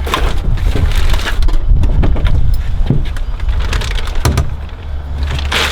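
Irregular clicks and clunks of a B&M automatic shifter and its hardware being fitted and worked into place, over a steady low rumble.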